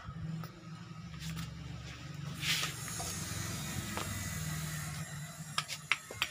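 Kawasaki Fury 125 crankshaft and connecting rod worked by hand, the rod clicking sharply about four times a second from about five and a half seconds in, over a low steady hum. The rod is damaged, noisy and due for replacement.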